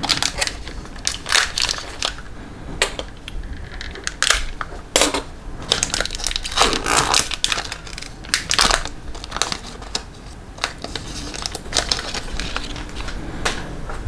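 Plastic card packaging crinkled and crackled by hand, in irregular bursts of sharp crackles, as trading-card packs and sleeves are handled.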